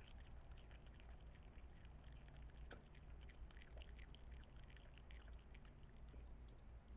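Opossum chewing chicken meat close to the microphone: faint, irregular wet smacking and clicking over a low steady hum.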